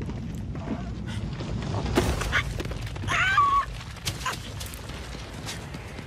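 Cartoon sound effects: a low rumble with a few sharp clicks, and about three seconds in a short warbling squawk from the cartoon ostrich that wobbles in pitch and ends on a brief held note.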